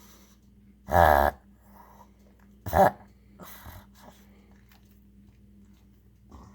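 Pug reverse sneezing: forceful snorting pulls of air through the nose, one long loud snort about a second in, a shorter one near three seconds, and a fainter one after, then the dog settles. A reverse sneeze is the dog's response to a tickle in the throat or nose.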